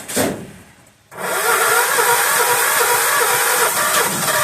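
1976 John Deere 300 riding mower's engine being cranked by its starter: a short thump, then from about a second in a steady, slightly wavering whirr as it turns over without catching yet.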